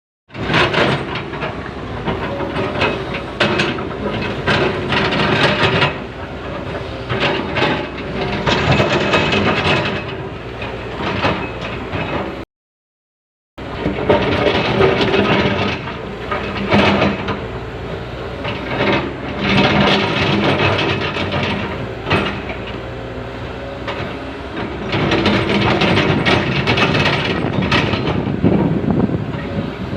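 Komatsu excavator's diesel engine running under load while the bucket scrapes and knocks against rock, with many short clanks and grinding over a steady engine hum. The sound drops out completely for about a second near the middle.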